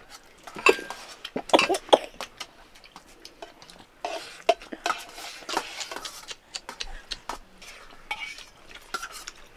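Utensils clinking and scraping against metal dishes: a cluster of sharp clinks in the first two seconds, then lighter scattered clinks.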